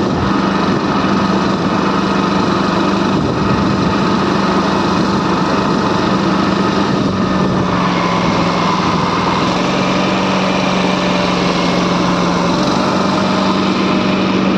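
Small engine of a wooden river boat running steadily under way: an even, unbroken drone with a constant low hum.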